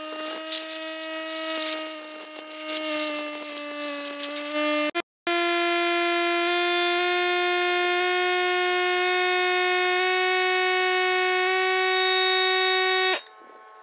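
Electric pressure washer running with a steady high whine, its spray hissing on a plastic skid plate for the first few seconds. After a cut the whine goes on alone and stops about a second before the end.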